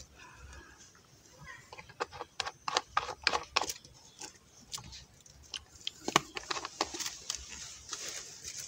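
Plastic packaging being handled and a plastic container being closed: a run of small crinkles, rustles and clicks, with a sharper knock about six seconds in.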